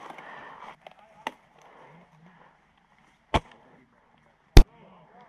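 Silverback TAC-41 bolt-action airsoft sniper rifle firing: two sharp shots about a second and a quarter apart, the second the louder, after a faint click about a second in.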